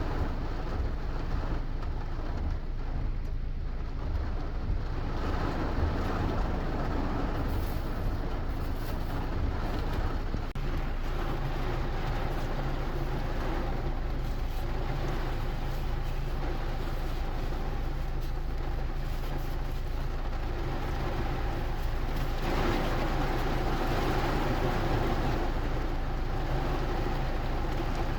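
Steady rain with a constant low rumble underneath.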